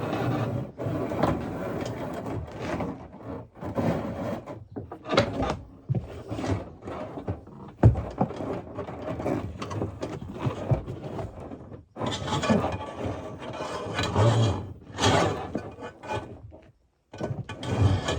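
Irregular clanks, knocks and scraping of hand work on metal parts, such as cable and fittings being handled and tools set down, with a short gap near the end.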